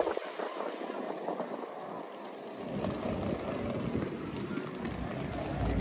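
Street ambience with a motor vehicle's low engine rumble coming in about halfway and growing louder as it approaches.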